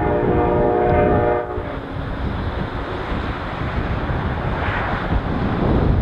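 Diesel locomotive air horn sounding a held chord of several tones, cutting off suddenly about a second and a half in, followed by wind buffeting the microphone.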